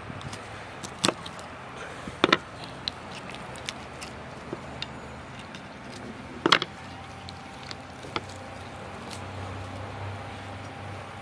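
A knife cutting up a whole raw chicken on a wooden cutting board. Three sharp knocks of blade and carcass against the board come about a second in, at two seconds and past six seconds, with fainter clicks between them.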